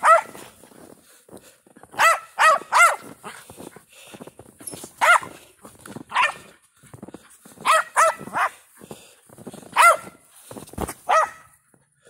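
Jack Russell-type terrier barking in play as it chases a ball: about a dozen short, high barks in quick bursts of one to three, a second or two apart.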